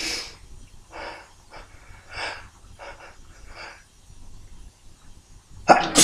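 A man's short, sharp breaths as a tickle-induced sneeze builds, half a dozen quick intakes in the first few seconds, then a sneeze bursting out near the end, the loudest sound here.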